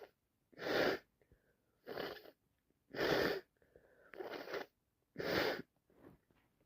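A person sneezing over and over from allergies: about five sneezes a little over a second apart, with faint breaths between some of them.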